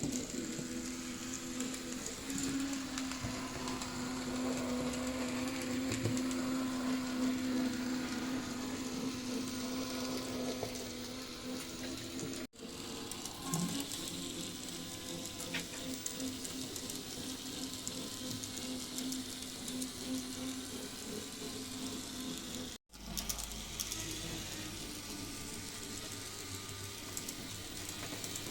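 Piko BR 62 TT-scale model locomotive's electric motor and gear train running, a steady whirring hum with a faint fine rattle, cut off abruptly twice. The running noise is one the owner believes comes from the motor; freshly lubricated, it runs a little smoother.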